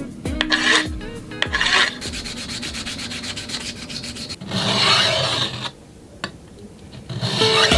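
Repeated abrasive rubbing strokes on the knife being finished. Short strokes come first, then a longer stretch with a fast fine ticking, then a louder stroke. The sound drops off briefly about six seconds in and picks up again near the end.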